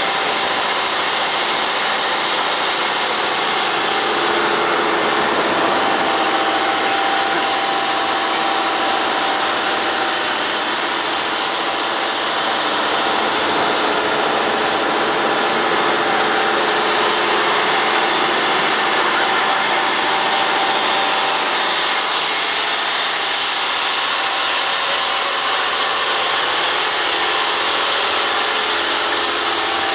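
Steady noise of a moving passenger boat: water rushing along the hull over the boat's engine running, with a few faint steady tones.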